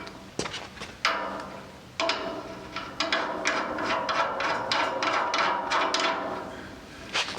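Quick, irregular metal-on-metal taps and clinks, each ringing briefly, coming thick and fast in the middle seconds: steel suspension hardware (bolts, bushings, rod ends) being knocked and worked into a rear suspension link.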